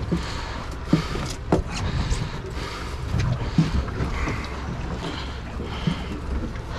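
Steady low rumble of wind and the boat on open water, with a few short sharp knocks on the deck about one, one and a half, and three and a half seconds in.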